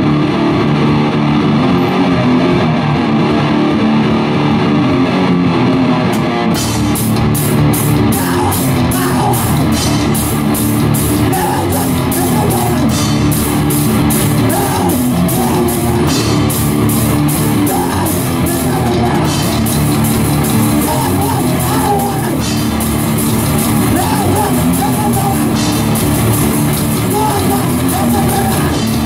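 Death metal band playing live through amplifiers. A distorted electric guitar riff plays alone at first, and the drum kit with cymbals crashes in about six and a half seconds in and keeps going fast.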